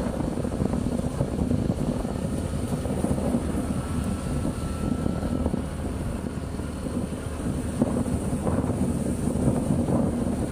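A motor scooter's engine drones steadily while riding along, with wind noise on the microphone.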